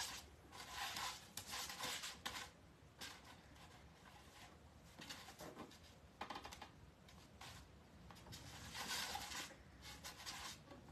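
Faint, scratchy rustling in short irregular bursts as pipe cleaners are twisted and pulled tight around a metal wire wreath form.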